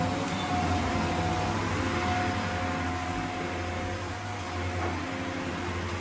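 Shark corded vacuum cleaner running steadily as it is pushed over carpet.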